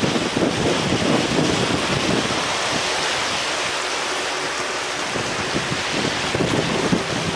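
Wind buffeting the camera's microphone: a gusty low rumble over a rushing hiss, easing for a couple of seconds midway, then picking up again.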